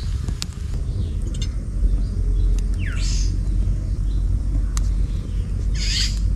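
Wind buffeting the microphone as a heavy low rumble over a crackling wood campfire, whose crackle comes as scattered sharp clicks. Short metallic scrapes about three and six seconds in as a wire grill grate is set down over the fire.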